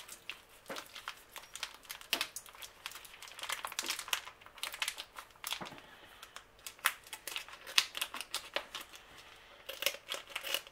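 Plastic vacuum pack of cooked beetroot crinkling and crackling in a series of irregular sharp crackles as it is handled and squeezed.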